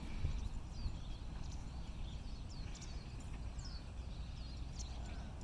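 Outdoor ambience: a steady low rumble of wind on the microphone, with short falling bird chirps about once a second.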